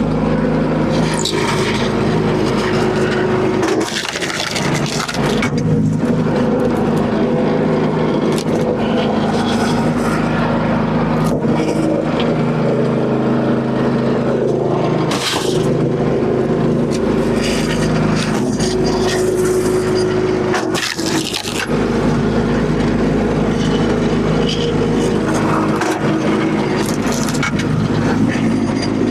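The small gas engine of a SuperSplit HD kinetic log splitter running steadily, with sharp cracks and knocks now and then as logs are split.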